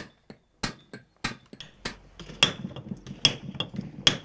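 Stonemason's round-headed hammer (massette) striking a steel chisel held against a stone block: about seven sharp metallic strikes in a steady rhythm, the later ones louder and leaving a short ringing note.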